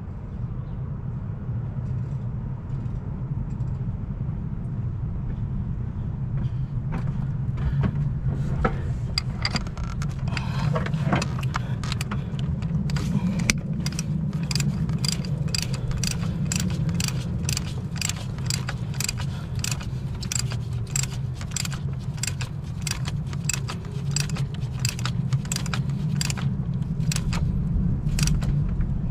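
Socket ratchet clicking as a new oil pressure sensor is tightened into the engine block of a Jeep 4.0L. A few scattered clicks come first, then regular ratchet strokes at about two a second from roughly halfway on.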